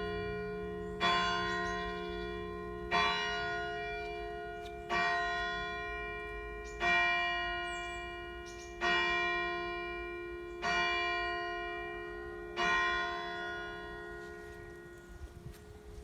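A single church bell striking noon: seven strokes on the same note about two seconds apart, each left to ring and die away. The last stroke fades out over the final few seconds.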